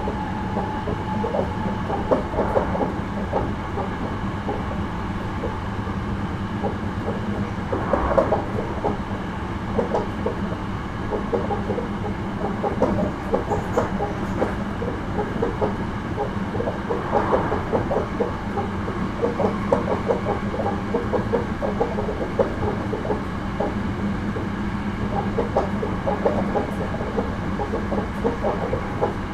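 Hankyu 9300 series electric train running at speed, heard from inside the car: a steady rumble of wheels on rail with a rapid, uneven run of clicks, and a faint motor whine that fades out over the first few seconds.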